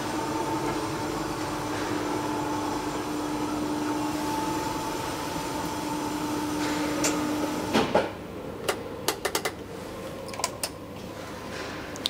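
Cibes platform lift's screw-driven electric drive running with a steady hum and two held tones as the platform travels, stopping about eight seconds in. Several sharp clicks follow.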